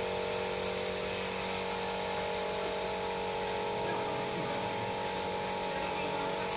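A small electric power tool's motor running with a steady whine.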